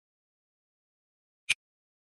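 One short, sharp click in otherwise dead silence.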